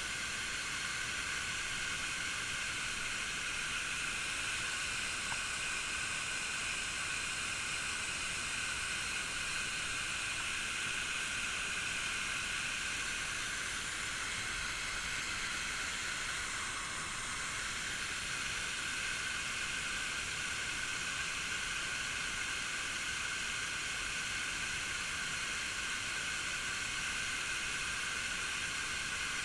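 Waterfall: a steady hiss of falling water.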